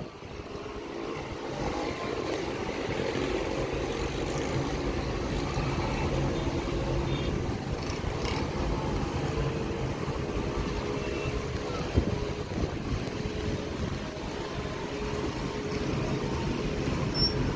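Steady hum of city traffic heard from above the rooftops, with a single brief knock about two-thirds of the way through.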